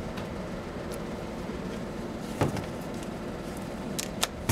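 A plastic clamp meter being handled on a wooden bench over a steady low hum and hiss: one dull knock about halfway through, then a few sharp clicks near the end as the meter is picked up.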